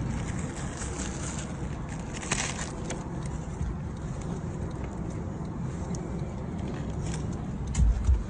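Steady low rumble of a car sitting idle, with small rustling and clicking handling noises, and a few heavy bumps near the end.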